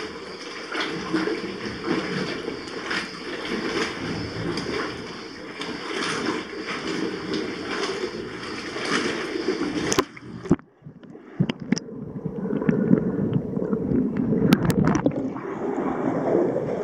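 Sea water sloshing and splashing close to the microphone in a sea cave, with a splash about once a second. About ten seconds in the sound cuts off suddenly and turns muffled and dull, with scattered clicks and gurgling, as the microphone goes under the water's surface.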